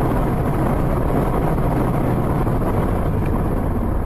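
Steady driving noise of a car heard from behind its windscreen: an even rumble of engine, tyres and wind, with no distinct impacts.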